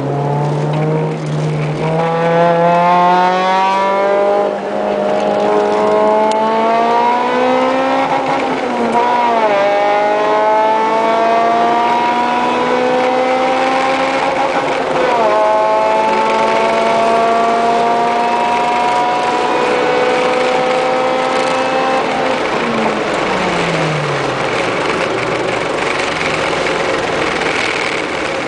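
Honda CR-X's four-cylinder engine heard from inside the car at full throttle, its pitch climbing through the revs with two quick upshifts about a third and halfway through. Near the end the revs fall away as it lifts off and slows.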